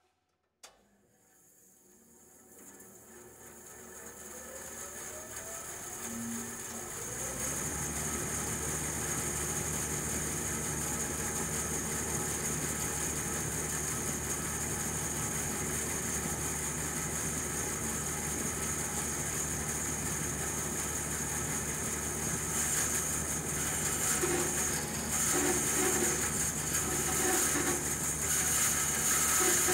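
Bandsaw switched on with a click about a second in, its motor and blade spinning up with a rising tone over several seconds to a steady running hum. Near the end the blade starts cutting through a wooden board, adding a louder, uneven sawing noise.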